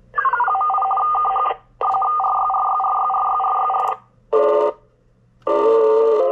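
Xiegu G90 shortwave transceiver receiving in LSB while being tuned across the 30-metre band: steady data-signal whistles with rapid keying, the first gliding down in pitch as the dial moves, broken by short silences. About five seconds in, several tones stepping up and down in pitch together take over, the sound of digital-mode signals.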